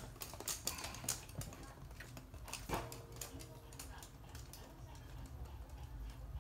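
A toy poodle's claws clicking and tapping on a hard, glossy floor as it trots about: quick irregular ticks, thickest in the first second and again around three seconds in, then sparser.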